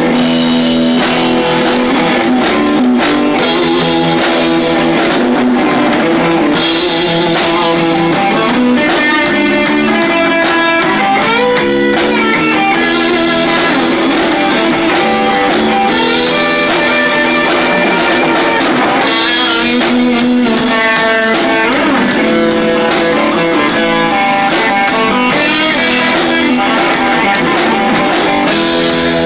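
Live rock band playing loud and continuously: electric guitar, bass guitar and a Pearl drum kit, with a steady cymbal beat.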